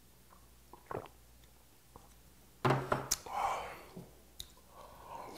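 Mouth sounds of someone drinking and eating: a faint swallow or click about a second in, then a short clatter with a brief low grunt and a breathy exhale about halfway through, followed by soft wet mouth sounds.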